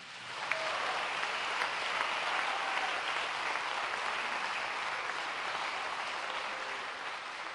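Audience applauding, starting about half a second in and easing off slightly near the end.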